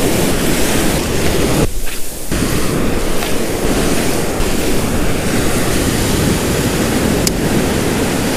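Ocean surf breaking and foamy wash running up over the sand at the water's edge, a steady loud rush with a brief dip about two seconds in.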